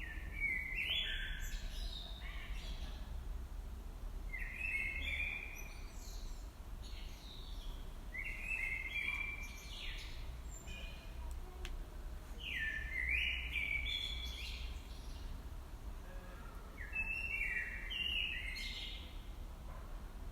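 A songbird singing clear, twittering phrases about two seconds long, five times at intervals of roughly four seconds. A low, steady rumble runs underneath.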